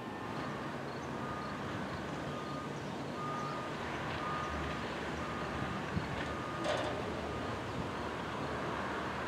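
A faint electronic beep repeating roughly once a second over steady outdoor background noise.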